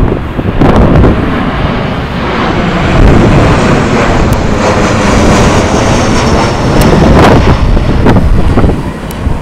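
Strong gusty wind buffeting the microphone, the level swelling and dipping, over the sound of a jet airliner's engines with a high whine that slowly falls in pitch through the middle.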